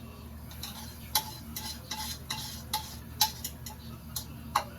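A metal utensil clinking and tapping against a dish: irregular sharp clicks, several with a short ring, the loudest about a second in, past three seconds, and near the end.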